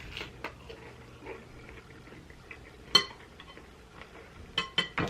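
Cutlery clinking against a dish while salad is eaten: one sharp clink about three seconds in, then three quick clinks near the end, with faint small eating noises between.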